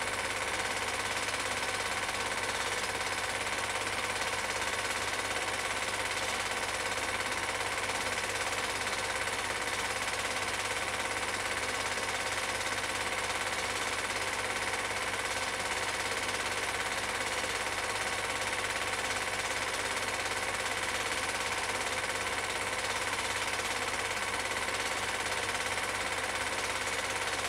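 Cine film projector running: a steady, rapid mechanical clatter from the film advance and shutter over a constant motor hum, unchanging throughout.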